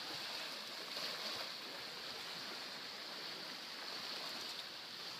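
Steady rushing outdoor background noise with no distinct events.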